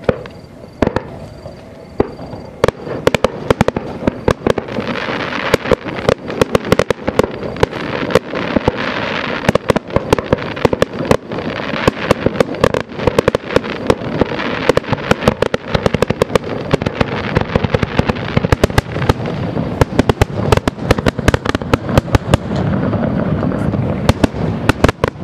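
Aerial fireworks shells bursting in a dense barrage: a single bang about a second in, then from a few seconds in many sharp bangs, often several a second, over a continuous crackle.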